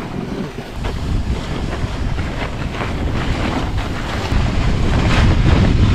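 A sled sliding fast down a packed snow track: wind buffets the microphone over the hiss and scrape of the sled on the snow, growing louder from about two-thirds of the way in.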